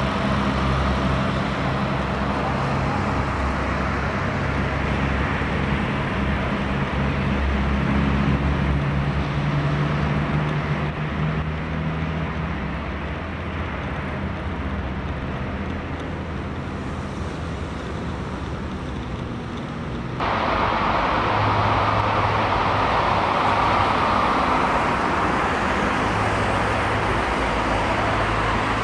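Road traffic noise: a steady rush of passing vehicles with a low engine hum underneath. About two-thirds of the way through, the sound changes abruptly and becomes brighter, as at an edit.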